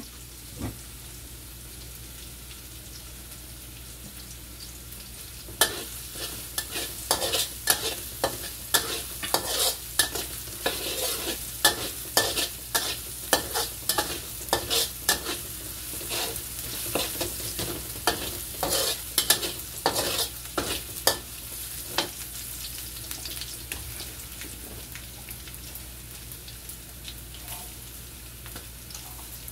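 Chopped shallots and garlic sizzling in oil in a steel wok. From about five seconds in until about twenty seconds in, a metal spatula scrapes and clacks against the wok in quick repeated strokes.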